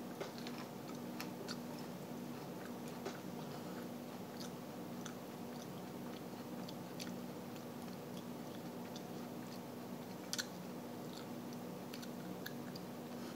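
A person chewing a whole Thai chili pepper: faint, irregular small crunches and mouth clicks, with one sharper click about ten seconds in.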